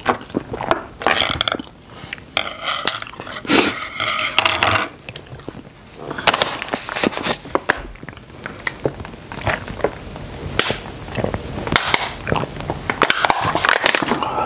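Close-miked mouth sounds of eating instant black bean noodles, then of drinking from a plastic water bottle: many small clicks, crackles and swallows through the second half.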